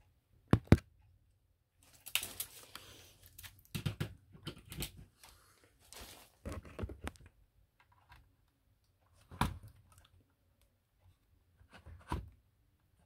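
Handling noise: plastic packaging bags crinkling and rustling in bursts, with sharp clicks and knocks as the plastic-cased portable TV is moved. Two clicks come close together about half a second in, and more come later.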